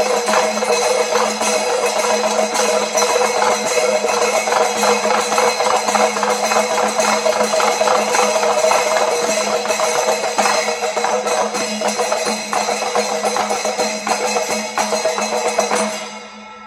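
Panchavadyam ensemble playing a fast rhythm: timila hourglass drums struck by hand under the steady ringing clash of ilathalam brass cymbals. The playing thins out and stops near the end.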